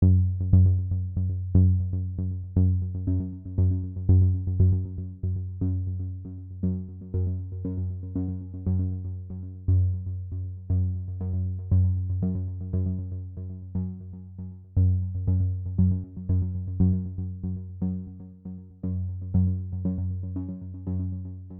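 Electronic background music: repeated synthesizer notes that strike and fade over a steady bass line.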